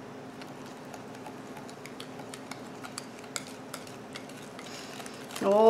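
Wire whisk stirring a runny condensed-milk and butter mixture in a glazed ceramic bowl, with light, irregular clicks of the wires against the bowl.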